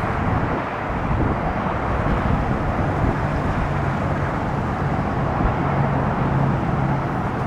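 Steady outdoor street traffic noise, with a low engine drone running through the middle of it.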